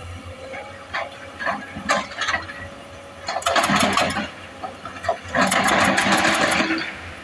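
Excavator engine running under a hydraulic breaker hammer, which knocks a few times and then hammers in two loud bursts of rapid blows.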